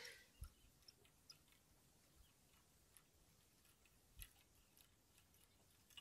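Near silence, broken by a few faint, scattered clicks and two soft low knocks, about half a second in and about four seconds in.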